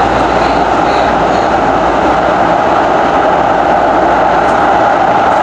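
Nippon Sharyo light rail train running through a subway tunnel, heard from inside its cab: a loud, steady running noise of the car on the rails.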